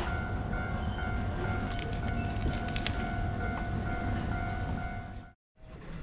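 Steady low rumble with a constant thin high-pitched hum and a few light clicks. The sound cuts out for a moment near the end, then the rumble returns.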